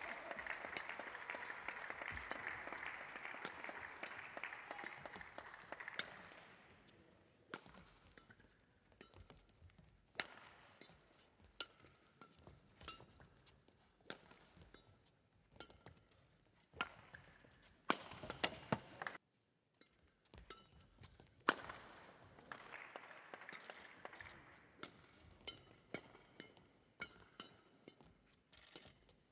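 Badminton rally: sharp, separate racket strikes on the shuttlecock. Spectator applause runs for the first several seconds and comes again about twenty-two seconds in.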